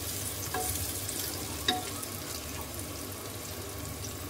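Sliced onions and whole spices sizzling in hot oil in an aluminium pressure cooker, stirred with a spatula that knocks and scrapes against the pot twice.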